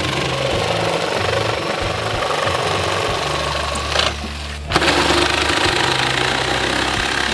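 Skil jigsaw cutting a round hole in a plastic bucket lid, the blade buzzing steadily through the plastic. The cutting breaks off for about half a second a little after four seconds in, then resumes. Background music plays underneath.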